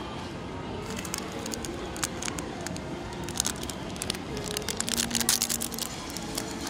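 Plastic candy-toy wrappers crinkling and crackling as they are handled and opened, in short bursts that grow thicker about three and a half and five seconds in.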